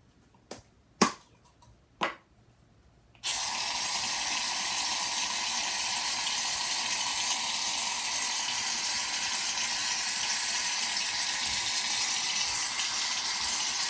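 A few short clicks, then from about three seconds in an aerosol can of shaving cream dispensing in one long, steady hiss.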